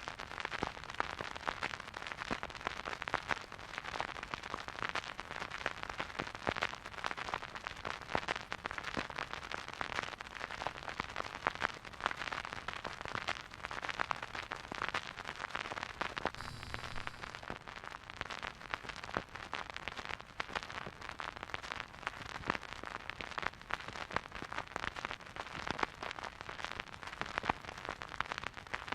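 Surface noise of a vinyl record playing a silent groove on a record player: a steady hiss thick with random crackles and pops.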